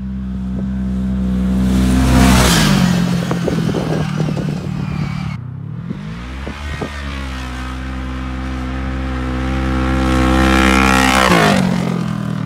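Kawasaki KRX 1000's parallel-twin engine through an RPM SXS catless stainless slip-on sport muffler, running at high revs under hard acceleration. Its pitch drops sharply about two seconds in, then climbs slowly and drops sharply again near the end.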